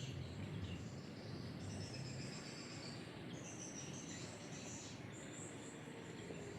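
Faint high-pitched insect trilling that starts and stops in stretches, over a low background hum.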